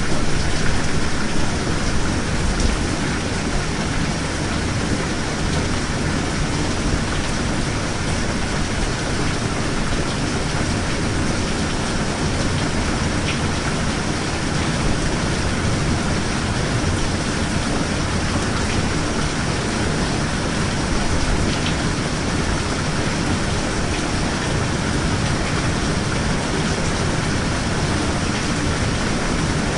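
Steady rain falling without a break, a dense even hiss with a low rumble underneath and a few faint drop ticks.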